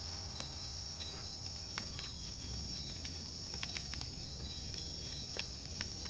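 Insects chirring steadily in a high, continuous trill over a low background rumble, with a few faint clicks.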